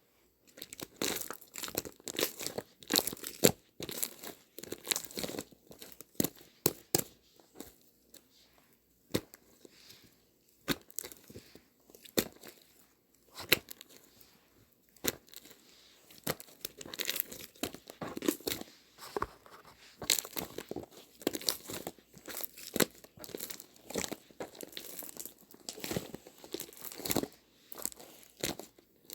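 Close-up crinkling and crackling: dense, irregular sharp clicks with a few short pauses.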